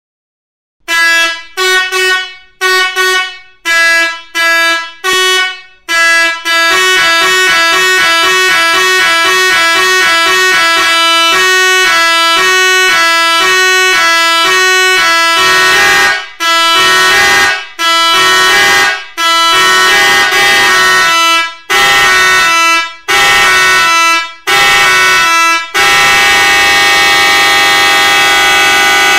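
Seger 86EE 24-volt 16-sound musical air horn playing. It gives about six short blasts, then a quick run of stepping notes that plays a tune, then longer held notes with short breaks between them.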